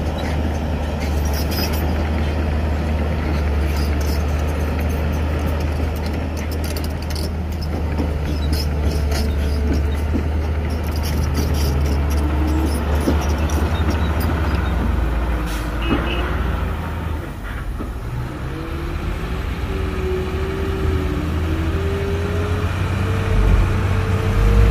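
Heavy diesel machinery working: a strong, low, steady engine drone. Scattered clanks come in the first half, and a wavering whine starts about halfway through.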